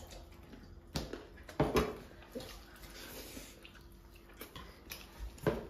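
Hand-eating sounds: fingers working curry-soaked rice on steel platters, with a few short knocks and clinks, one about a second and a half in and another near the end.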